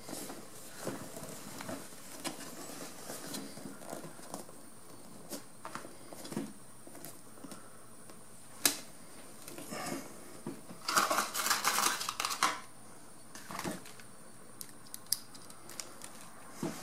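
Small handling sounds from hands working a vinyl cover over a motorcycle seat base and poking through it with an awl: scattered clicks and soft knocks, one sharp click a little past halfway, and a burst of clattering and rustling about two-thirds through.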